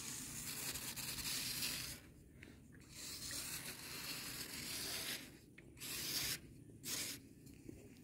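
Small metal carving tool scraping and shaving packed sand from a sand sculpture, a gritty hiss in separate strokes: two long strokes of about two seconds each, then two short ones near the end.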